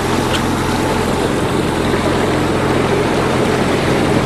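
A sailboat's inboard auxiliary engine running steadily while motoring in a flat calm: an even low hum over a constant hiss of water and wind.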